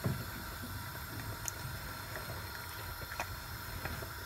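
Faint steady low rumble of kitchen background noise, with a soft knock near the start and a couple of faint clicks.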